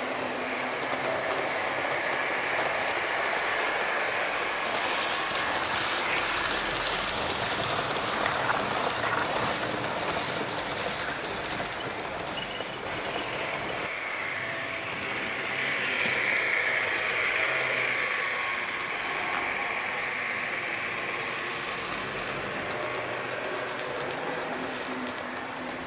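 HO-scale model train, a Roco DB class 110 locomotive with passenger coaches, rolling along metal track: a steady rushing rattle of wheels and motor that swells as the train passes close, about a quarter of the way in and again a little past halfway, with quick clicking over rail joints and points between about a fifth and two fifths of the way through.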